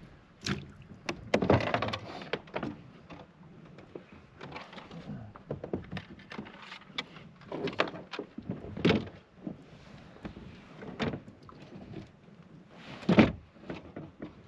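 Irregular knocks, thumps and scrapes from handling in a fishing kayak, loudest about a second and a half in, with a sharp thump near the end.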